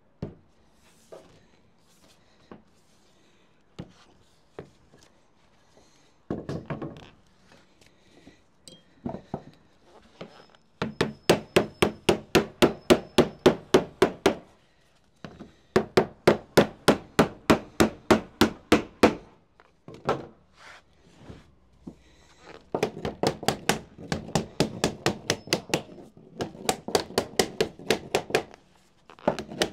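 Hammer striking a setting stick to set sheet lead into shape: a few scattered knocks, then long runs of quick, even blows, about five a second, with short pauses between runs.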